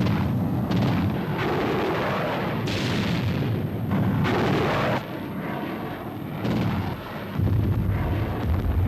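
Loud, continuous rumbling noise with no speech, its texture shifting every second or so, heaviest in the low end.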